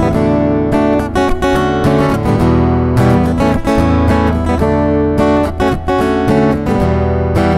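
Gusta GDX130C electro-acoustic dreadnought guitar in matte finish, with a solid Sitka spruce top and rosewood body, played plugged in through its Fishman Isy301 pickup: chords sounded in a continuous run of strokes.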